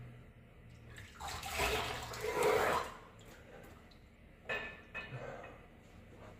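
Water splashing at a washbasin as a man rinses his face with cupped hands: one long splash about a second in and a shorter one past the middle.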